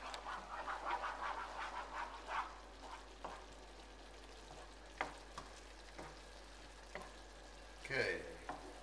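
Tomato sauce sizzling in a frying pan while a wooden spoon stirs it, with scraping for the first couple of seconds. A few sharp knocks of the spoon on the pan follow.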